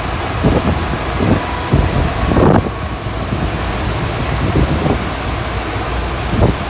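Steady rush of water pumped up the FlowRider surf simulator's slope, with wind buffeting the microphone in gusts several times.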